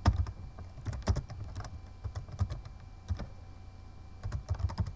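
Typing on a computer keyboard: irregular runs of keystroke clicks broken by short pauses.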